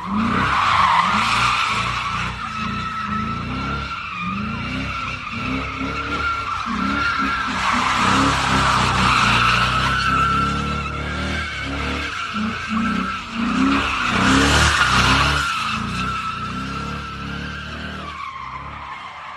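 Car tyres squealing in a sustained slide while the engine revs rise and fall again and again, as in drifting or a burnout, on a car fitted with an Eaton-style limited-slip differential. The squeal swells loudest around the middle and again about two-thirds through, then fades over the last few seconds.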